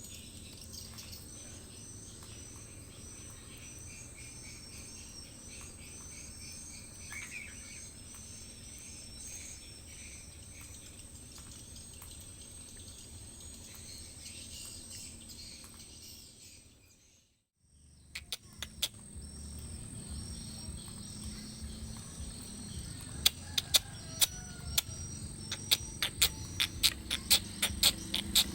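Birds calling in a run of short, repeated chirps over a steady high insect drone. After a brief drop-out about two-thirds of the way through, a run of sharp, loud chips or clicks comes in quick succession near the end.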